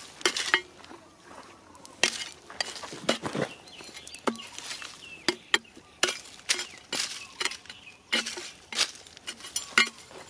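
A metal digging tool chopping into stony soil, striking rock over and over at an uneven pace, about one blow a second. Some strikes ring briefly with a metallic clink, and loose earth and pebbles scrape in between.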